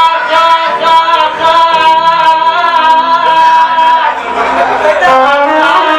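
Iraqi mawwal music: a melodic line holds one long note for about four seconds, then moves through shorter notes over accompaniment.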